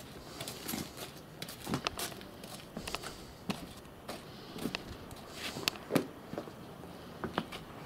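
Footsteps walking on a packed-earth yard: irregular soft steps with scattered short clicks and taps.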